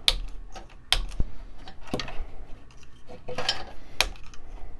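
Plastic cable drag chain's hinged link gates being snapped open one after another: sharp plastic clicks about once a second, with lighter ticks and handling rustle between.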